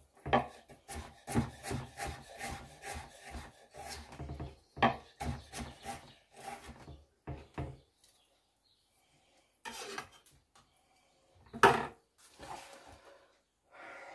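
Chef's knife slicing elephant garlic on a wooden chopping board: a run of quick knocks of the blade against the wood for about eight seconds, then a pause and a single sharper knock on the board.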